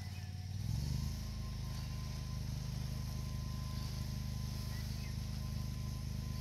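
A steady low engine-like hum that shifts its note just under a second in, with a faint steady higher tone joining it.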